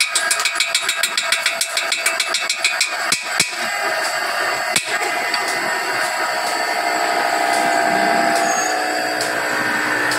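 A hand tool taps quickly on the steel of a truck rear axle housing, about five metal strikes a second for the first three seconds. A few single strikes follow, over a steady workshop background.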